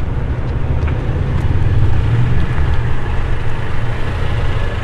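Steady low rumble of a car's engine and cabin noise, heard from inside the car.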